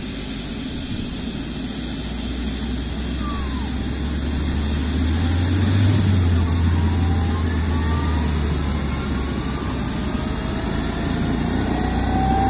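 AgustaWestland helicopter's turbine engines starting up on the helipad: a whine rising slowly in pitch over a deep steady hum, getting steadily louder.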